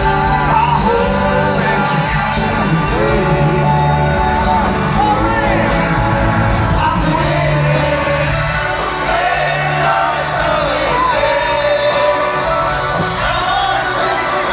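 A live rock band playing loudly over a stadium PA, with a lead voice singing over steady bass and band, heard from within the crowd.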